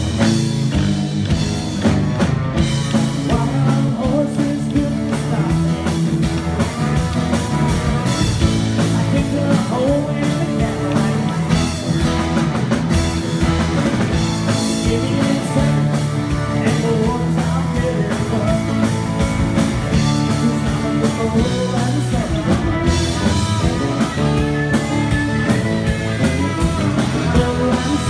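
Live country band music: a strummed acoustic guitar with a drum kit keeping a steady beat.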